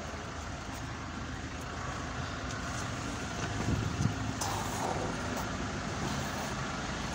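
Road traffic on a wet street, with a van and a lorry driving past close by. The noise is steady and grows slowly louder.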